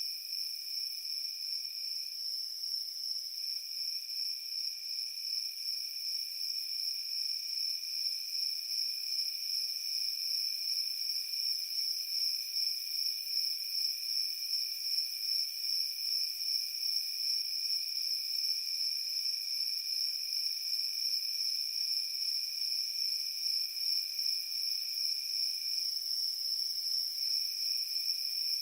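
Night-time chorus of crickets trilling steadily, a high, finely pulsing trill over a lower one that drops out twice briefly, about 2 seconds in and near the end.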